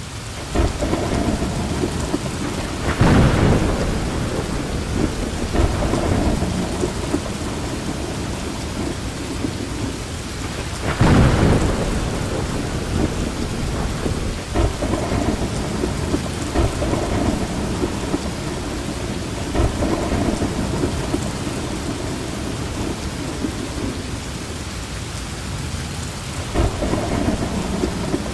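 Heavy rain falling steadily in a thunderstorm, with louder rolls of thunder swelling about three seconds in and again around eleven seconds.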